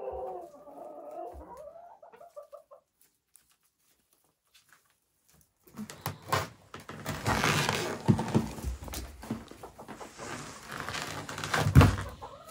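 Chickens clucking for the first few seconds, then a short quiet gap. After that comes a stretch of rustling and handling noise with repeated knocks, and a loud thump near the end.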